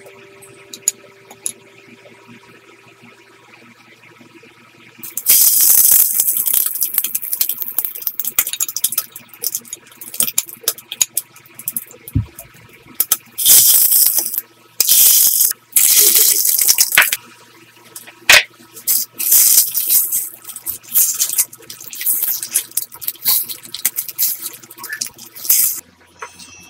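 Loud irregular rustling and rattling noises in bursts with sharp clicks, starting about five seconds in and stopping just before the end, like packaging or objects being handled.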